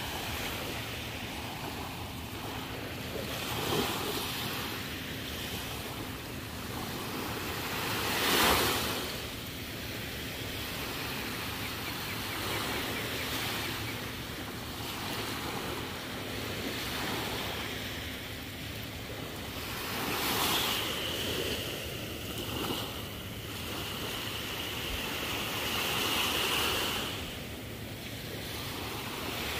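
Small waves lapping and washing up onto a sandy shore in slow swells, with wind on the microphone; one louder rush comes about eight and a half seconds in.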